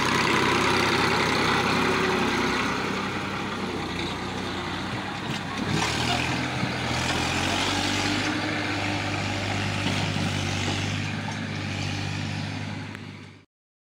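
Massey Ferguson 1035 DI tractor's three-cylinder diesel engine running steadily while the tractor pulls a loaded trolley. The engine note changes about six seconds in, and the sound cuts off suddenly near the end.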